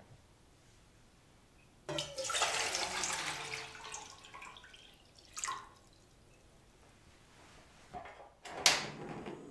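Water poured from a stainless steel bowl into a stainless steel pot, splashing for about two and a half seconds, with a short splash a second later. Near the end a click and a sharp snap as the portable gas stove is switched on, followed by a steady hiss of the burner.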